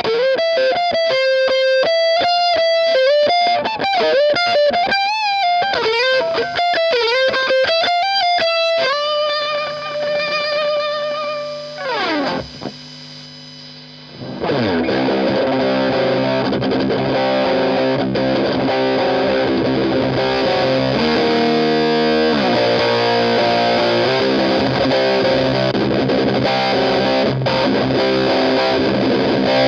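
Electric guitar played through a Walrus Audio Iron Horse LM308 distortion pedal. It opens with a single-note lead line full of string bends and vibrato, then holds a note that fades out, slides down the neck and goes briefly quiet. From about halfway in, distorted chords ring on steadily.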